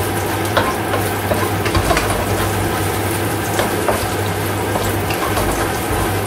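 Chopped onion sizzling in hot oil in a wok, stirred with a wooden spatula that knocks and scrapes against the pan every so often, with a steady low hum underneath. This is the aromatics frying until fragrant.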